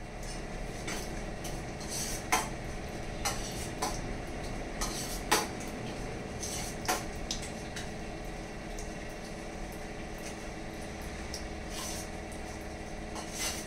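Metal pots and utensils clinking and scraping as food is handled in a pot, about a dozen sharp clinks over a steady hum.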